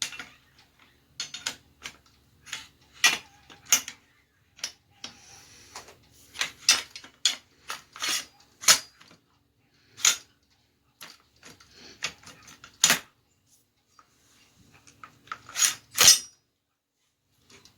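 Metal parts of a Stoeger shotgun clicking and clattering as they are handled and worked at to fit them together. The knocks come at irregular intervals, and a few are sharper and louder.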